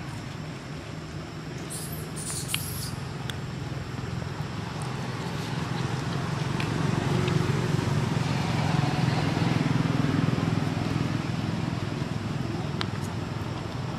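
Low engine rumble of a motor vehicle, growing louder through the middle and easing off again toward the end, with a few faint clicks.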